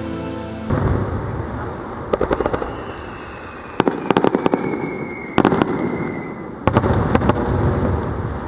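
Fireworks display: shells bursting with deep booms, each followed by quick crackling, coming in several clusters a second or two apart. A faint falling whistle sounds between bursts. Background music cuts off just before the first boom.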